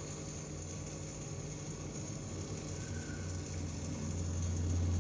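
Steady low hum of an aquarium filter pump over a soft hiss of moving water, growing a little louder near the end.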